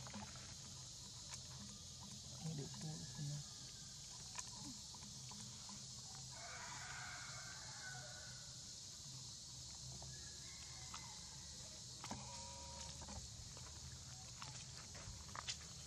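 Quiet outdoor ambience: a steady high hiss and a low hum, with a faint, distant call about six to eight seconds in.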